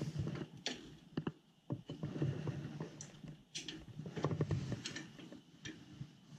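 Hands handling fittings at a gas boiler's valve and supply pipe: uneven rubbing and scraping with scattered light clicks and knocks.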